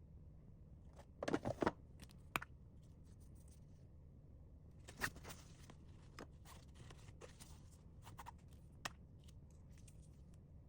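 Handling of items and packaging: scattered small clicks and crinkly rustles, with a short cluster about a second in and single sharp clicks later.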